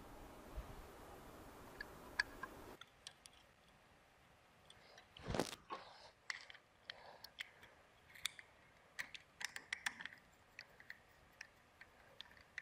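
Faint small clicks, ticks and scrapes of a security camera being fitted to its metal mounting plate and screwed in with a hand screwdriver, with one louder scrape about five seconds in and a run of quick clicks in the second half.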